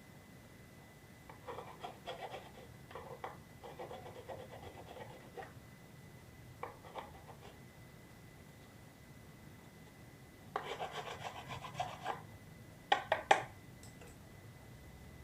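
Hand sanding of a 3D-printed plastic part: sandpaper rubbing in short bursts of strokes, with a pause in the middle and a few sharper, louder strokes near the end.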